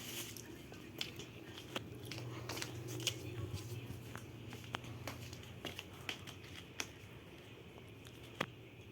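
Irregular small clicks, taps and rustling, as of things being handled or moved about, over a steady low hum.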